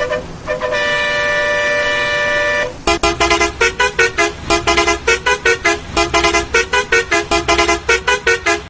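Bus horn sound effect in edited variations: a single honk held for about two seconds, then a fast string of short honks, about five a second, jumping between pitches.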